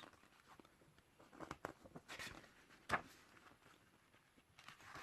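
Faint handling of a paper manual: soft rustles and light taps, with one sharper click about three seconds in.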